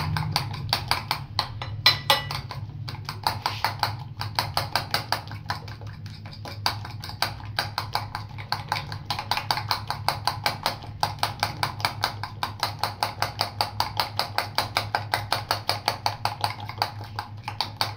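Egg and flour batter being whisked by hand with a utensil in a glass bowl: quick, even clicks of the utensil against the glass, about five a second. A low steady hum runs underneath.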